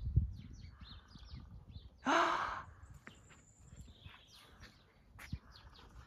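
Great spotted woodpecker drumming faintly in the distance, a rapid rattle a little under a second in, among small birds chirping and singing. A brief breathy sound comes about two seconds in, and a low wind rumble runs underneath.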